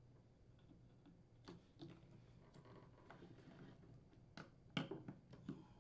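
Faint, scattered clicks and taps of steel needle-nose pliers and a small coiled metal spring against a plastic refrigerator flapper hinge as the spring is hooked into place, the sharpest click about five seconds in.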